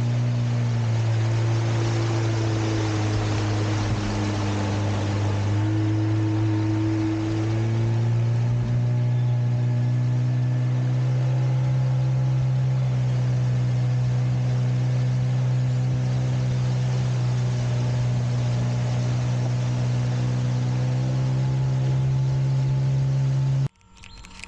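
Boat engine running at a steady speed, a low drone whose pitch steps up slightly about eight seconds in; it cuts off abruptly near the end.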